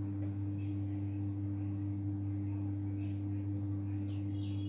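Steady low hum, with faint short bird chirps coming in near the end.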